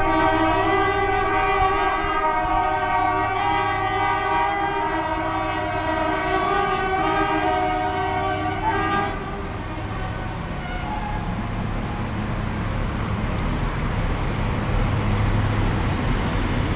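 Diesel locomotive horn sounding one long, loud, steady blast that cuts off about nine seconds in, over the steady rumble of running diesel engines. The engine rumble grows a little louder near the end.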